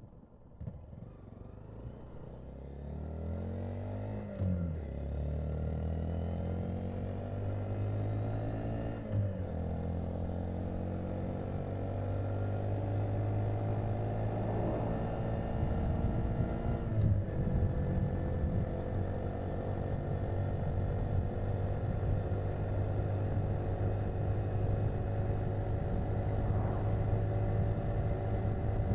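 Honda Monkey's single-cylinder engine pulling away and accelerating, its pitch climbing and dropping back at each upshift several times in the first seventeen seconds or so, then running steadily at cruising speed with road and wind noise.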